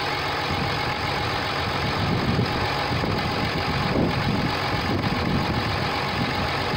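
Cummins 6.7-litre straight-six turbodiesel idling steadily while a quart bottle of ATF+4 automatic transmission fluid is upended into a funnel, the fluid glugging irregularly as it drains in.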